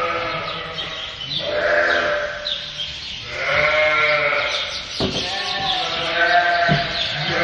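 Several sheep bleating, calls overlapping one another.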